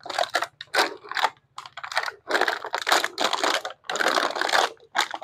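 Empty plastic bottles crackling and crunching under a man's feet as he tramples them flat, in a quick, irregular run of crunches with short pauses between them.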